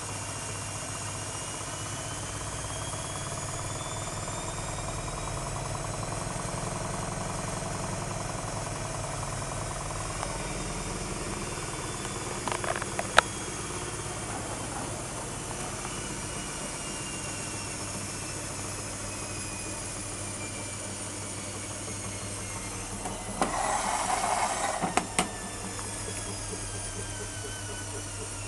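Privileg washing machine's drum motor spinning, a whine that climbs over the first few seconds and then slowly drops as the spin winds down. There is a sharp clack about halfway through, and a brief louder rattling noise with clicks near the end.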